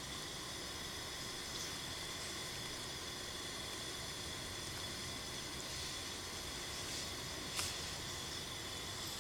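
Room heater running with a steady hiss and a faint whine. A single short click comes near the end.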